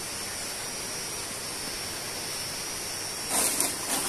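Steady background hiss with a faint high whine. About three seconds in come a few short rustling knocks as the phone is moved.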